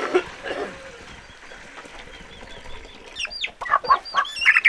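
Domestic chickens held in people's hands clucking and squawking in short rising and falling calls, which come thicker over the last couple of seconds. A brief rush of noise sounds at the start.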